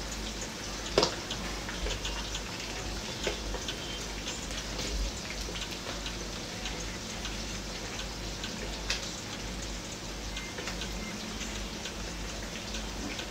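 Chicken pieces frying in plenty of hot oil: a steady sizzle full of small crackles and pops, with a couple of sharper clicks about a second in and about nine seconds in.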